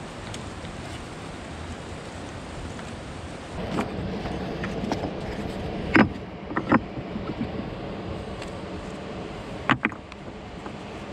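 Stones clacking against rock and against the bamboo pole as it is wedged upright among riverside boulders. Two sharp knocks come about halfway through and two more near the end, over the steady rush of river water.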